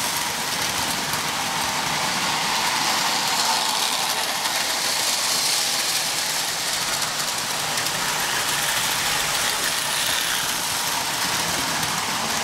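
O-gauge toy trains running on three-rail tinplate track. A steady metallic whir of wheels on the rails and the locomotives' electric motors as the trains pass.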